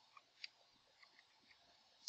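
Near silence broken by a few faint, short clicks of computer keyboard keystrokes.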